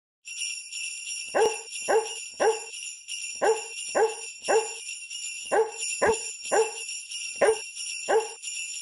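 Sleigh bells jingling steadily under short dog barks set to a beat, in groups of three, three, three and then two, like a barking-dog Christmas tune.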